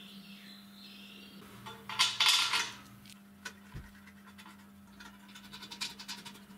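Steel bolts being fitted and tightened with a wrench in the mounting feet of an electric motor: a loud metallic scraping rattle about two seconds in, a couple of knocks, then a run of quick metallic clicks near the end.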